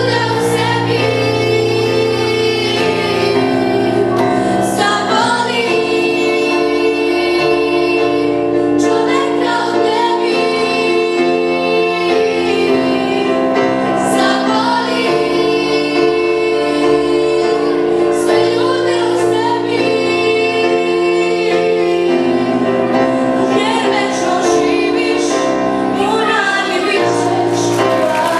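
A girl singing a song into a microphone over instrumental backing music, with a children's choir.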